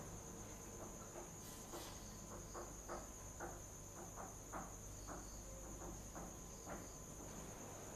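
Faint steady chirring of crickets, with soft irregular clicks scattered through it.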